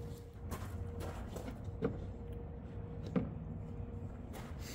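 A few light knocks and clicks from metal hydraulic cylinder parts being handled at a bench vise, the clearest about three seconds in, over a faint steady hum.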